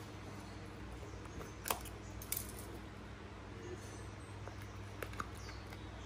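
A few light clicks and taps from a small white cardboard Zippo lighter box being handled and its lid pulled off: a sharp click a little under two seconds in, a small cluster soon after, and two faint ticks near the end, over a faint steady room hum.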